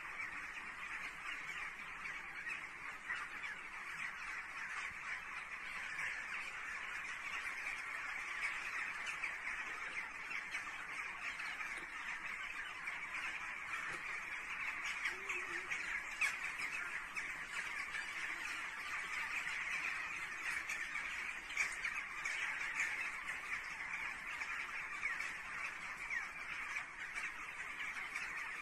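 A large flock of birds calling all at once at night, a steady dense din of many overlapping cries with no pause.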